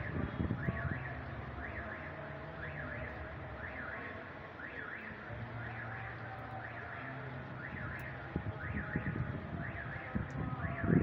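An electronic alarm sounding in repeated quick rising-and-falling sweeps, with low gusts of wind on the microphone near the start and the end.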